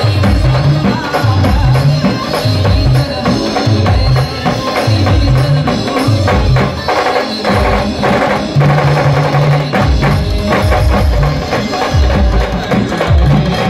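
Live Maharashtrian street band (band party) playing a folk song: drummers beating snare drums in a fast, dense rhythm over a regular pulsing bass line.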